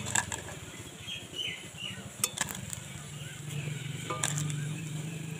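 A metal slotted spoon clinking a few times, about two seconds apart, as freshly fried fritters are lifted out of the oil and tipped onto a plate, over a steady low hum.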